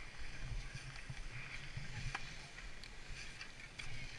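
Skis sliding and scraping over packed snow, with a fluctuating low rumble of wind buffeting the body-worn camera's microphone as the skier moves.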